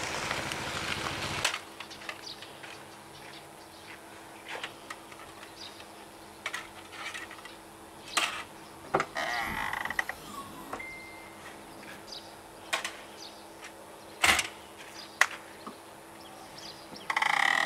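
Rear hatch of a Toyota Prius being unlocked and lifted: a steady rush that cuts off after about a second and a half, then scattered clicks and knocks, a sharp knock about fourteen seconds in, and a louder rush ending in a thump near the end.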